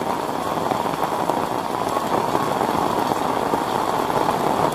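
Heavy rain falling steadily, an even, constant hiss.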